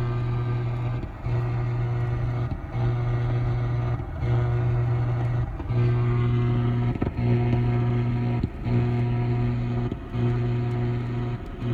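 Radio-frequency interference heard through an AM radio tuned near 950 kHz: a low, steady buzz that drops out briefly about every second and a half. The owner suspects it is synced with the strobe lights on the repeater tower.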